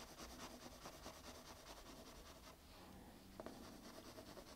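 Faint scratching of a graphite pencil on paper as quick, even shading strokes are laid down. The strokes pause a little past halfway, then go on more faintly.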